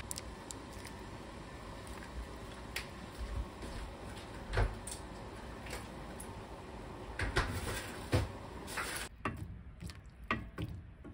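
Saucepan of soy-sauce broth heating on a gas stove: a steady hiss with occasional clicks and knocks as seasoning is added. About nine seconds in the hiss drops away and chunks of taro start to plop and splash into the liquid.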